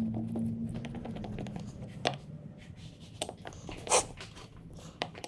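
Scattered small clicks and taps of hand tools and carburetor parts being handled during a carburetor rebuild, the loudest about four seconds in. A low steady hum underlies the first two seconds and then stops.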